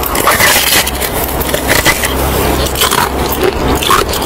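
Crunchy bites and chewing of a block of packed snow: a dense, continuous run of crackles as the snow breaks.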